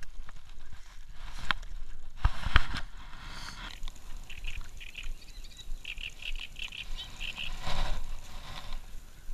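Handling noise on a chest-worn action camera: a jacket rubbing and knocking against the camera, with a few sharp knocks in the first three seconds and a rustle near the end. In between comes a run of short, high chirps.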